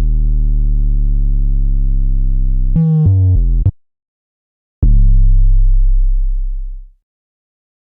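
Synthesized deep bass tones from a speaker-check vibration sample pack: a long, loud bass tone slowly sinking in pitch cuts off just under three seconds in, followed by three quick stepped notes. After a short gap a second deep bass hit sinks in pitch and fades out over about two seconds.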